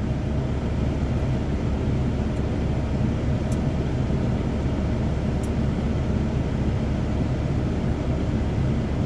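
Steady low hum of a semi truck's diesel engine idling, heard inside the cab, with two faint ticks partway through.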